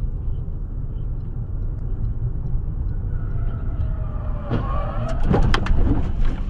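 Car driving, heard from inside the cabin as a steady low road and engine rumble. About four and a half seconds in, a cluster of sharp knocks and clatter lasting a second or two, the loudest part.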